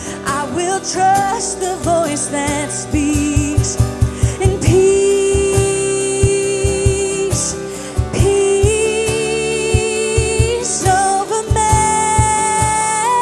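Church worship band playing a slow worship song with a steady drum beat, a singer holding long sustained notes over it.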